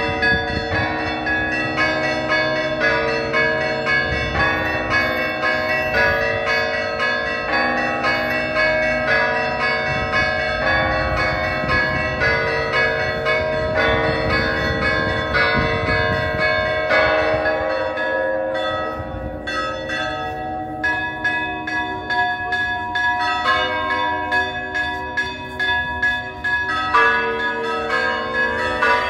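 Church bells ringing in a continuous peal, many strokes in quick succession with overlapping tones.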